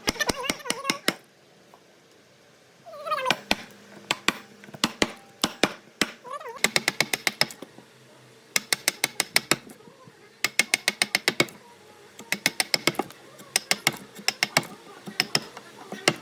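Runs of rapid, sharp taps, several a second in groups of about a second, with a few short gliding, voice-like calls between them.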